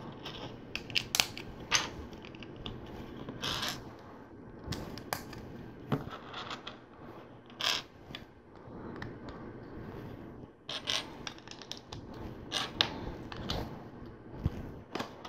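Plastic LEGO pieces being handled and snapped together: an irregular scatter of small clicks, taps and clatters.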